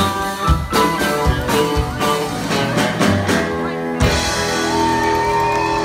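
Live blues jam with harmonica, guitar and spoons clicking out the rhythm. About four seconds in the clicking stops and the final notes are held out.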